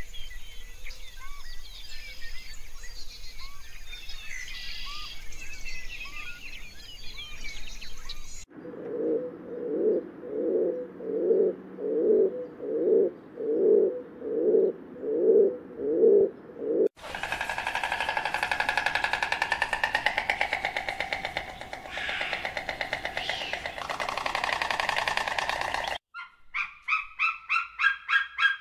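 A series of animal sounds. Small birds chirp at first. Rock pigeons then coo in a steady rhythm, about one coo a second for some eight seconds. A long pitched, buzzy sound follows, and near the end comes a fast run of short calls, several a second.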